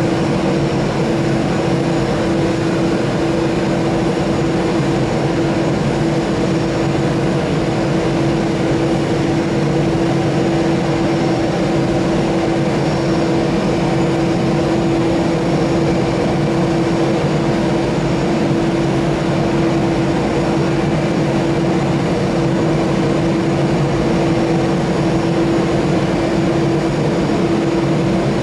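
Airbus A320-214's CFM56 jet engines running at idle thrust as the airliner taxis away after pushback: a steady, unchanging engine noise with one constant tone held through it.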